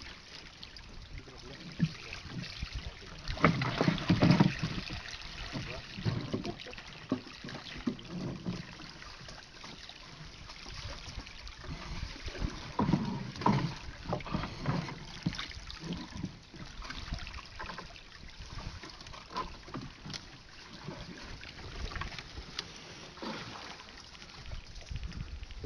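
Irregular knocks and scrapes of a wooden boat and the wooden frame of a large round lift net being handled against it, with the net rustling. A cluster of louder thumps comes about four seconds in and again around thirteen seconds.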